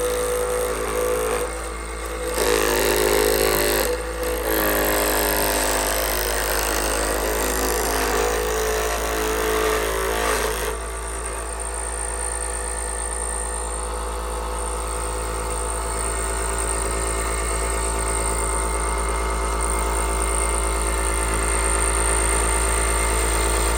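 Vintage child's electric scroll saw running with a steady motor buzz as its blade cuts freehand, the sound shifting partway through and stopping abruptly at the end. The owner thinks the saw needs a little oil.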